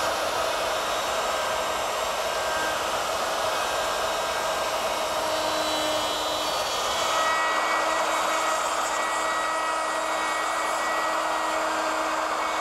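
Router fitted with a dovetail bit running steadily while cutting dovetails in a pine board against a dovetail jig's template: an even motor whine mixed with the noise of the cut.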